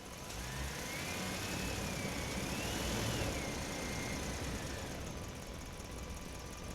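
A remote-control 1:18 VW Kombi model driving. Its small electric motor whines, rising in pitch as it speeds up, wavering, then falling away as it slows, over a low running rumble.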